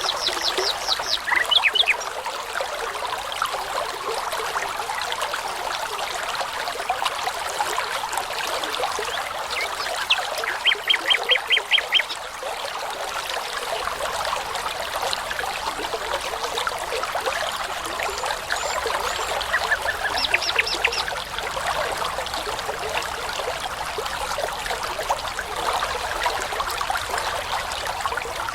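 A babbling brook runs steadily while a songbird sings short phrases of quickly repeated notes, several notes a second, three times: at the start, about a third of the way in, and about two-thirds through.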